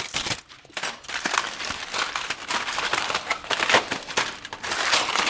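Takeout food wrapping crinkling and rustling steadily as a crisp tostada is unwrapped and handled.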